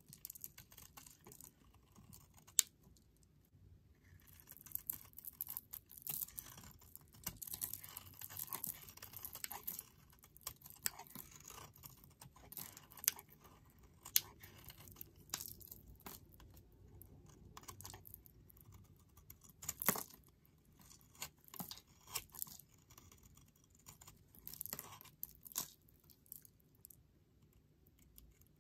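Snap-off utility knife blade carving a crumbly charcoal bar soap: irregular scraping, crunching and crackling as chunks break away. A few sharper clicks stand out, the loudest about twenty seconds in.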